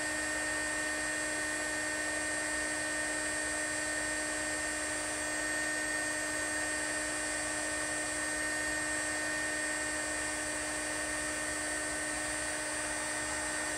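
Steady mechanical hum and whine: several fixed tones over a low, even rumble, unchanging throughout. The crimping of the terminal makes no distinct sound of its own.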